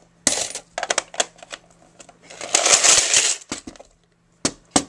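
Handling noise: a run of sharp clicks and knocks, with a rattle about a second long near the middle, the sound of coins and hard plastic being moved about.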